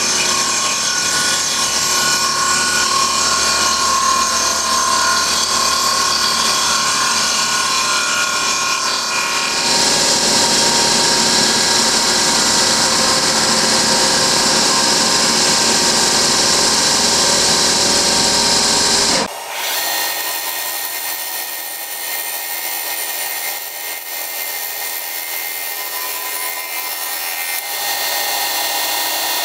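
Fly cutter in a milling machine spindle facing a series of blocks, pallet wood first and a two-part polymer block last: a continuous cutting noise that turns brighter about ten seconds in, then drops suddenly to a quieter cut with steady machine tones about nineteen seconds in, as the material changes.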